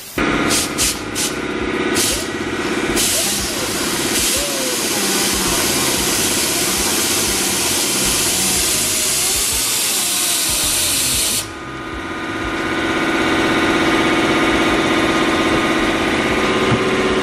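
Pneumatic cutting tool running and cutting into the plastic inner lip of a car's rear bumper to clear room for a turn-down exhaust tip. Its whine wavers in pitch under a loud air hiss as it bites. About two-thirds of the way through the hiss drops and the tool runs on more steadily.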